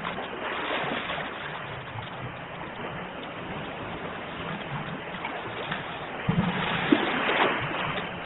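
Sea waves breaking and washing on the shore: a steady rush of surf that swells twice, the second swell, near the end, the louder.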